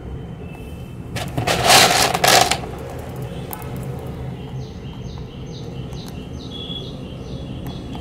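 A loud rustling burst lasting about a second and a half, then a pet rabbit chewing dry pellets close up: even crunching clicks, about two a second, from about halfway through, over a steady low rumble.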